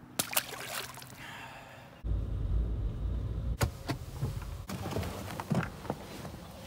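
A caught bass is let go into the river with light splashing and dripping. Then a car's low rumble is heard from inside the cabin. It starts abruptly about two seconds in and drops away a couple of seconds later, followed by scattered scuffs and knocks.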